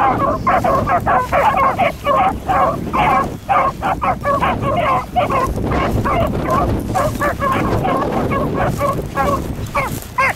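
Beagles baying on a rabbit's trail: a rapid, unbroken run of short barks and yelps, about three or four a second.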